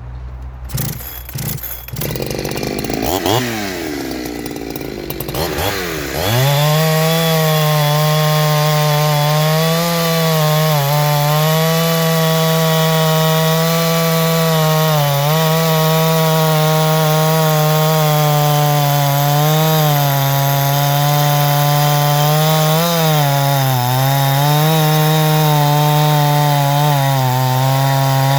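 Farmertec G372XT two-stroke chainsaw, a Husqvarna 372XT clone, with a few knocks and two quick revs up, then held at high revs. From about six seconds in its note stays steady, with brief dips in pitch every few seconds.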